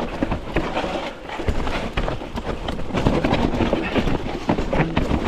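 Mountain bike descending a loose, rocky trail: tyres crunching over stones and dirt, with many irregular sharp knocks and rattles from the bike over a continuous rushing noise.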